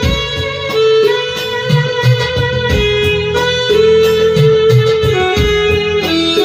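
Electronic arranger keyboard playing a song: a held melody voice stepping between notes over the keyboard's programmed drum beat.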